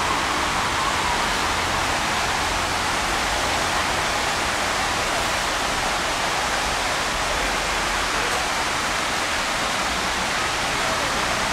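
Steady rush of water running at a canal lock, an even hiss that does not change.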